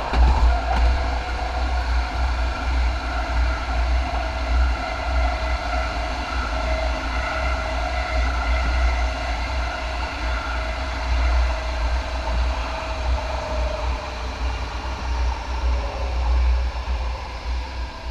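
MAX light rail train running along the track: a steady low rumble with a faint whine that drifts slowly down in pitch.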